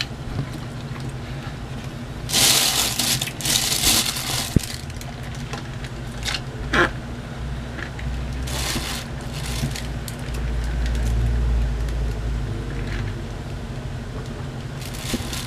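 Rustling and crinkling of fast-food packaging handled while eating, in a few short bursts, the loudest about two and a half seconds in. A steady low hum runs underneath.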